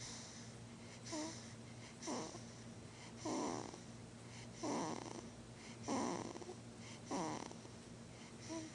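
Short snoring breaths, about seven in a row roughly a second apart, a few of them with a faint squeak.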